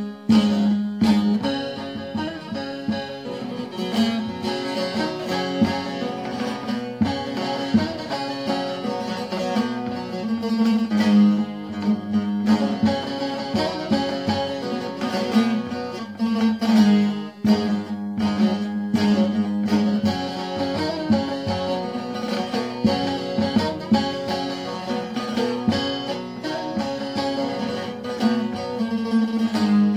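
Bağlama (long-necked Turkish saz) played solo: a quick run of plucked melody notes over a low open string that keeps ringing. It is the instrumental passage between the sung verses of a folk song.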